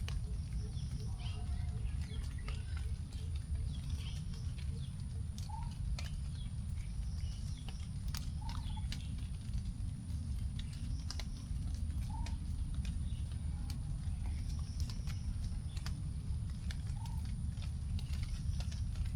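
Raindrops dripping from the forest canopy onto leaves after rain: irregular sharp ticks. A bird gives a short rising call every three or four seconds, over a steady high-pitched hum and a low rumble.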